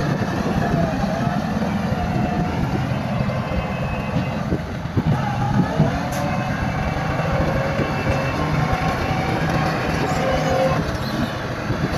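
Heavy diesel earthmoving machinery running steadily, with wavering high squeals and a few metallic clanks about halfway through.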